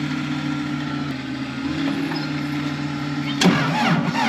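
A cold vehicle engine starting in freezing weather. It catches suddenly about three and a half seconds in and runs with its pitch rising, over a steady low hum.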